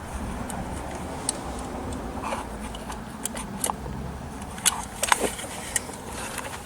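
Light clicks and taps of small plastic and metal parts being handled as the Kenwood Chef's speed-controller switch is fitted back into place. The clicks are irregular, with a cluster about five seconds in, over a low steady hum.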